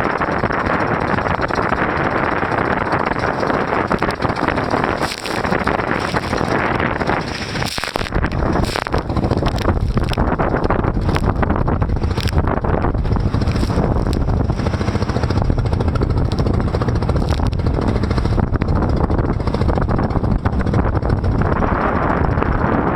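Motorized banca's engine running under heavy wind noise on the microphone as the boat rides head-on over waves, with brief spray splashes hitting now and then through the middle stretch.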